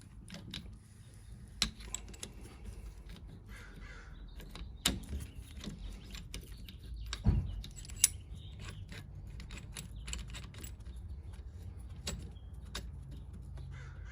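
Scattered metallic clicks and clinks of hand tools on a rear disc brake caliper as its piston is wound back in, with a few sharper knocks about two, five and seven seconds in over a low steady hum.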